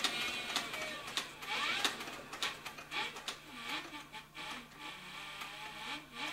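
Cowboy CB4500 heavy-duty leather sewing machine stitching slowly through thick saddle leather, its needle and shuttle clicking at a steady rhythm of about two stitches a second.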